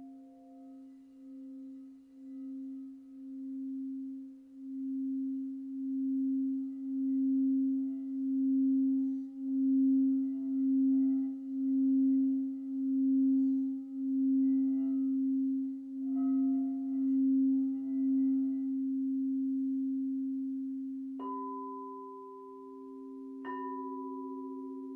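Crystal singing bowls: a low bowl sings a steady tone that pulses in slow, regular swells. Near the end two higher bowls are struck one after the other and ring on over it.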